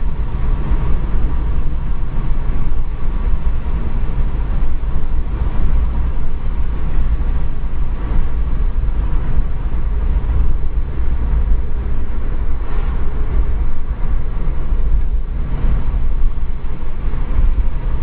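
Road and wind noise inside a moving car's cabin: a loud, steady low rumble.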